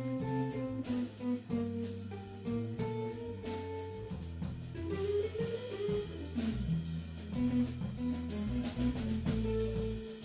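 Jazz trio of guitar, bass and drums playing live: a guitar melody over bass notes, with drum and cymbal hits. About five seconds in, a guitar note slides upward.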